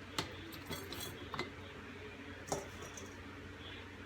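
A spoon clinking against glass jars a handful of times, the loudest clink about two and a half seconds in, as sliced jalapeños are packed down into the jars.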